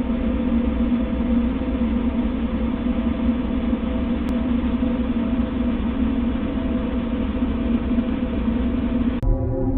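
Steady, dense rumbling drone presented as the 'sound' of a planet: a space-ambience recording or sonification. Near the end it cuts off abruptly and a different, more tone-laden drone takes over.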